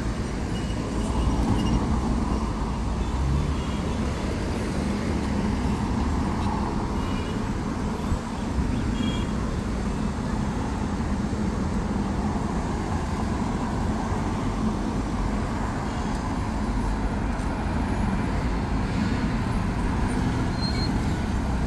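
Steady street noise dominated by road traffic, an even rumble with no single event standing out.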